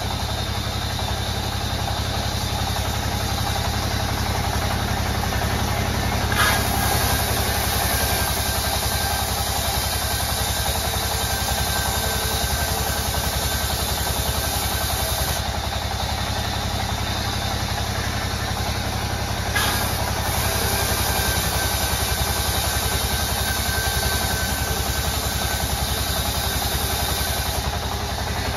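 Powered sawmill saw running steadily with a low motor hum, ripping planks twice. Each cut starts with a knock and a high hiss from the blade in the wood: the first about six seconds in, lasting some nine seconds; the second about twenty seconds in, ending just before the end.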